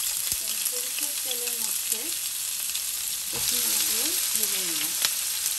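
Bottle-gourd skin strips, broccoli and peas sizzling in hot oil in a nonstick frying pan, a steady frying hiss that grows a little louder about three and a half seconds in.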